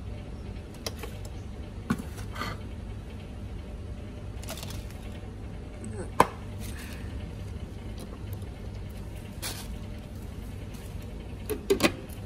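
Light knocks and clicks from handling a Kenwood food processor's plastic bowl loaded with sliced lemongrass, with the motor not running. There is one sharp click about six seconds in and a short clatter of plastic near the end as the lid is fitted, over a low steady hum.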